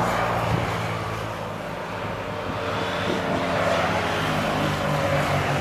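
Motorcycle engines running steadily as the motorcycles approach along the road, growing slightly louder in the second half.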